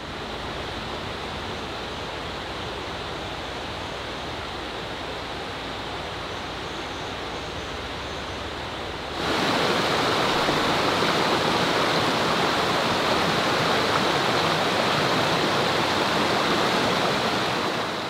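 Mountain stream rushing over rocks, a steady hiss of running water that turns suddenly louder and brighter about halfway through.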